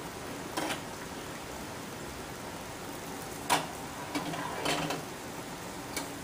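Steady hiss of an aquarium air-stone bubble curtain running, with a few sharp clicks and knocks over it; the loudest knock comes about three and a half seconds in.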